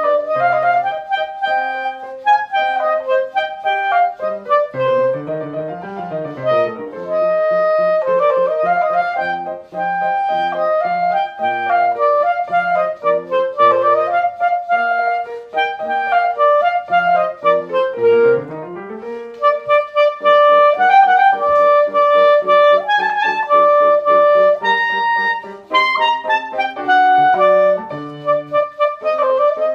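Clarinet playing a quick, running melody over piano accompaniment.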